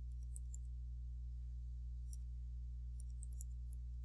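Faint, light clicks of a computer keyboard and mouse as a dimension is typed in, a few scattered taps with a small cluster near the end, over a steady low hum.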